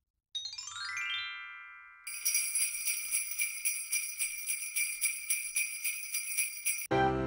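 Magic chime sound effect: a quick falling run of bright chime notes that rings out, followed by sleigh bells jingling in a steady shaken rhythm. Piano music comes in right at the end.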